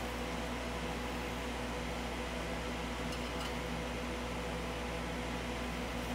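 Steady electrical hum over a hiss, unchanging throughout, with two faint ticks about three seconds in.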